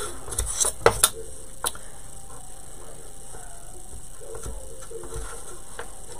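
Light clicks and taps from small wooden and fabric craft pieces being handled on a cutting mat, several in the first two seconds, then a faint low voice murmuring about four seconds in.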